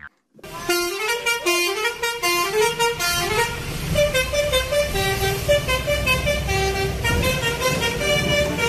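Bus telolet horn playing a quick multi-note melody, runs of short stepped tones rising and falling, starting about half a second in.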